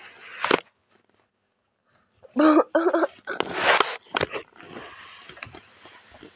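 A baby's short babbling vocal sound about two and a half seconds in, followed by rustling handling noise and a few small knocks.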